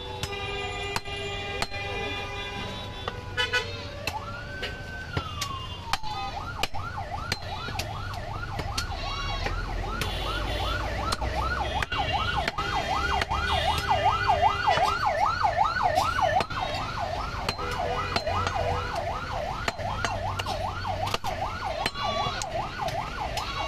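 A vehicle siren warbling rapidly up and down, about three times a second, from about six seconds in. Sharp chops of a meat cleaver striking a wooden chopping block sound throughout.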